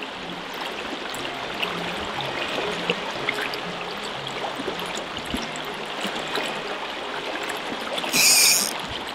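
River current running and rippling around a wading angler's legs, under quiet background music. About eight seconds in comes a half-second loud, high buzz from the fly reel's click drag as line is pulled off it.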